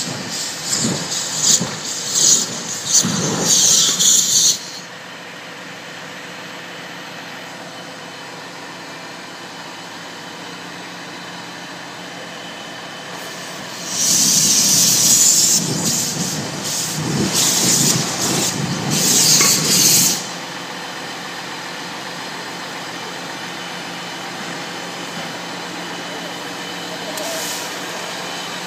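Burning gas jet hissing from the valve of a leaking gas cylinder, loud for the first four seconds or so and again from about fourteen to twenty seconds in, with a quieter steady noise between and after.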